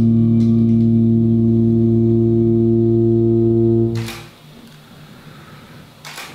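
A man's voice holding one low chanted note, rich in overtones, steady in pitch. It breaks off about four seconds in, leaving a quiet pause with a couple of faint clicks.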